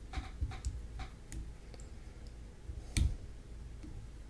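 Light clicks and ticks from hands working the thread bobbin and copper wire at a fly-tying vise, several in the first second and a half, then one louder knock about three seconds in.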